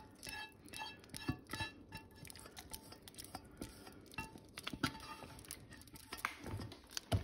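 Spatula scraping and tapping against a saucepan as thick tomato marinade is scraped out over a steel bowl of sliced carrots, a string of faint light knocks and scrapes.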